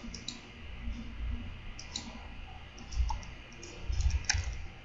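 A handful of scattered computer mouse clicks, the sharpest one near the end, as points are picked for a line in a CAD drawing, over a low rumble.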